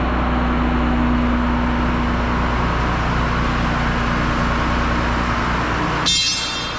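Crane truck's engine running steadily under load as the crane holds the concrete pump aloft. About six seconds in, a brief high-pitched squeal.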